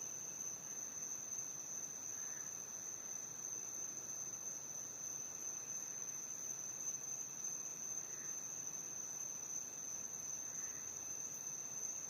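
Night insect chorus of crickets: a steady, unbroken high-pitched trill, with a few faint short calls lower down.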